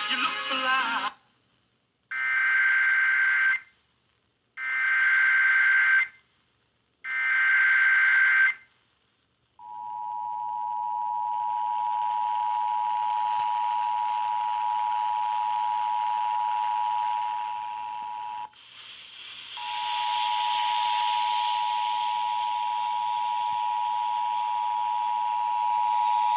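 Emergency Alert System broadcast over radio: three short screeching bursts of SAME header data, then the steady two-tone EAS attention signal, which drops out for about a second partway through and comes back. It heralds a severe thunderstorm warning.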